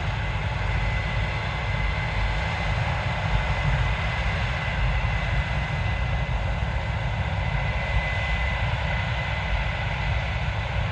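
Case IH 7230 Axial-Flow combine running steadily while harvesting soybeans: a deep machine rumble with a steady high whine over it.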